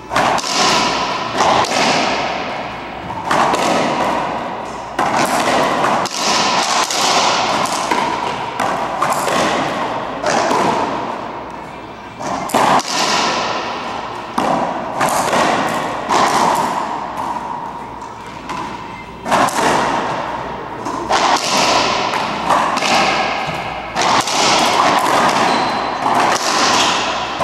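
Racquetball rally: the rubber ball is struck by racquets and hits the court walls, sharp hits every second or two, each ringing out in the echo of the enclosed court.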